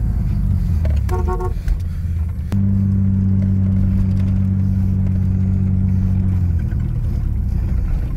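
Motor vehicle engine running off-road with a low rumble. Short beeps come about a second in, then a knock, followed by a steady, even engine drone for about four seconds before the rumble turns uneven again.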